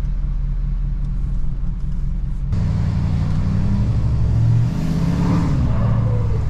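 Dually pickup truck engine running, picking up revs with a sudden change in note about two and a half seconds in and a rising pitch later on.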